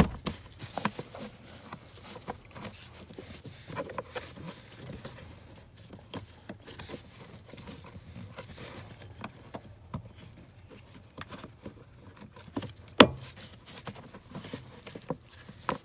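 Scattered plastic clicks, taps and rustling as a door wiring harness connector is pressed by hand into its mount, with one sharp snap about 13 seconds in.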